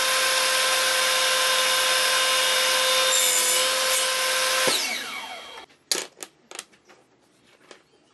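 Table saw running with its blade spinning at full speed: a steady loud whine. About five seconds in it is switched off and the blade spins down, the whine falling away over about a second. A few light, sharp knocks follow.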